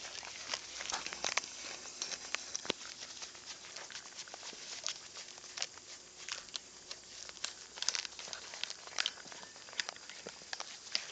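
A goat chewing and tearing a fresh green leaf: an irregular run of small crunches and crackles.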